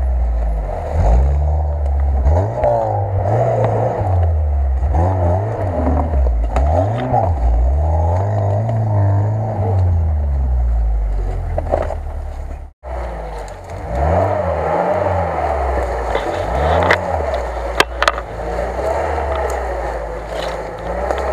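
Lada Niva (VAZ-2121) engine revving up and down again and again as the car crawls over rough forest ground, with brief scrapes and a few sharp knocks about three-quarters of the way through.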